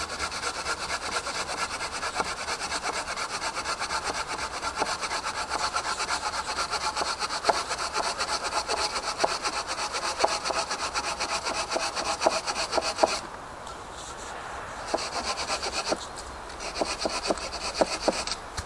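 Fiskars folding hand saw cutting through a log, with rapid, steady back-and-forth strokes of the blade rasping through the wood. About 13 seconds in the strokes stop; they come back in two short spells, and the second one finishes the cut near the end.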